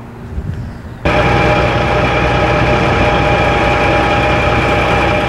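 Cat 3406 turbo diesel of a horizontal wood grinder running steadily without load, with a steady whine over the engine note. It turns abruptly much louder about a second in.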